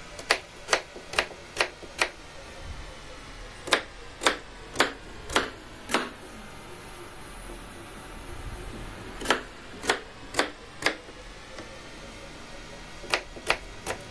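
A kitchen knife chopping through radish and striking the cutting board, in runs of four or five quick, crisp strokes about two a second, with short pauses between runs.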